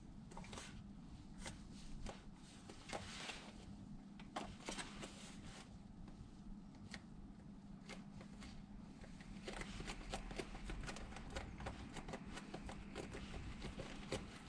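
Fingers pinching and pressing the pleated edge of a football boot's upper down onto its insole board, making a run of quick crackling rustles and ticks that grow busier in the second half. A faint steady low hum runs underneath.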